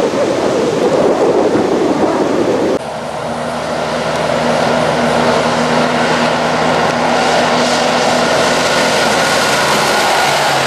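A loud rushing noise that cuts off suddenly about three seconds in. Then a heavy diesel road train, a prime mover hauling two refrigerated trailers, approaches with its engine holding a steady note under rising tyre and road noise, growing louder as it comes past.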